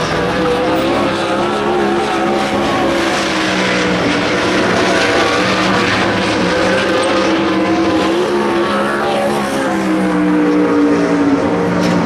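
Several racing engines running at a steady, near-idle speed, their pitch wavering a little, typical of sprint cars waiting in line.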